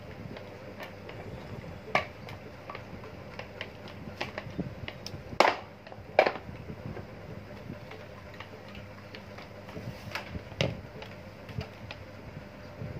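Scattered light clicks and knocks of a small child eating, tableware tapping against a plastic dish, with two sharper knocks about five and six seconds in, over a faint steady background hum.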